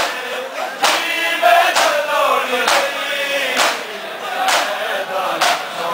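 Crowd of male mourners chanting a noha together, with chest-beating matam: open-hand slaps on bare chests in unison, about one a second, keeping time with the chant.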